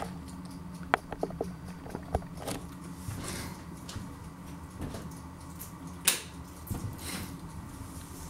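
Scattered light clicks, taps and rustles of things being handled, with a sharper knock about six seconds in, over a faint steady low hum.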